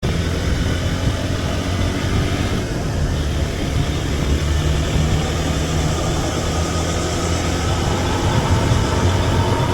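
Hero XPulse 200 single-cylinder motorcycle engine running steadily while riding, with wind rushing over the microphone.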